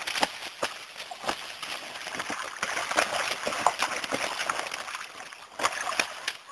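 A duck and a rooster fighting at the water's edge: water splashing and wings flapping, with irregular sharp slaps, loudest near the start and again near the end.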